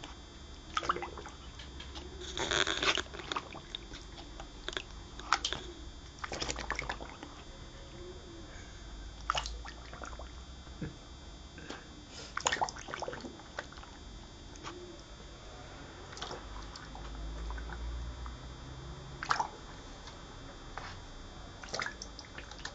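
Scottish terrier blowing bubbles in water: irregular short bursts of bubbling, with a longer, louder burst about two to three seconds in.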